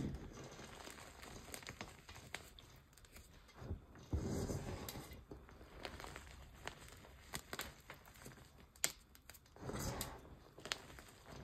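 Hands squeezing and pressing into a bowl of loose cornstarch powder, giving soft crunching and crackling, with fuller, louder squeezes about four seconds in and again near the end.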